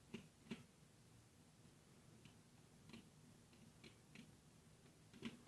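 Faint, scattered small clicks and ticks of a screwdriver and wire working into a screw terminal block as a wire is fastened.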